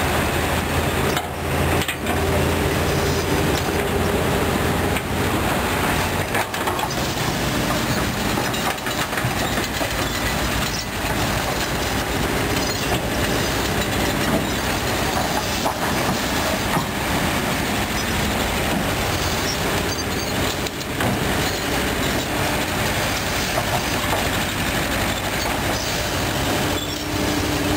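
Kobelco SK200 hydraulic excavator working: its diesel engine runs steadily under load while the steel bucket scrapes and drags through soil and stones, with a continuous scatter of small clanks and knocks. The low engine note is heavier for the first several seconds.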